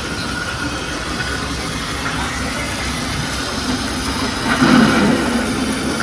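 Steady hiss of an artificial rain shower, water falling like real rain, with a brief louder swell about four and a half seconds in.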